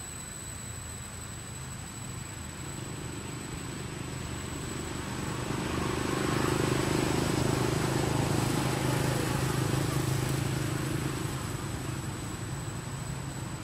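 A motor vehicle passing by: a low engine hum and road noise swell to a peak about six to ten seconds in, then fade away.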